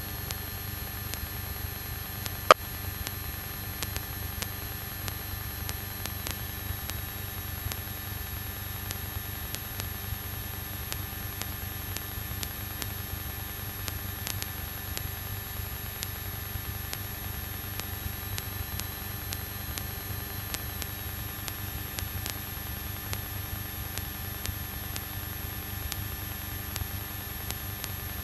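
Steady hiss and electrical hum of a light aircraft's intercom audio feed, with one sharp click about two and a half seconds in.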